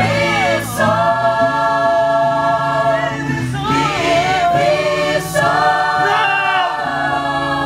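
Choir singing long, held notes with no recognisable words, over a steady low backing.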